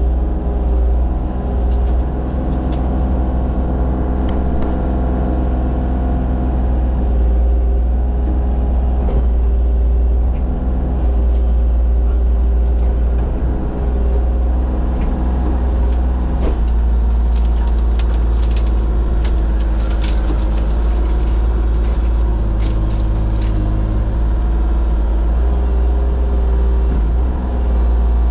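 Forestry mulcher's diesel engine running steadily under load as it clears brush, with scattered sharp cracks and clicks of wood being struck in the latter half.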